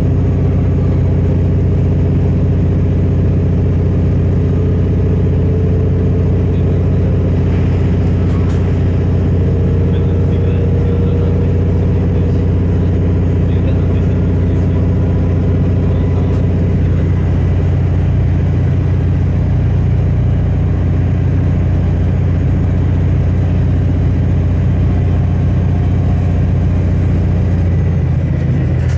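Engine of an old diesel railcar running steadily under way, heard from inside the passenger saloon as a deep, constant drone.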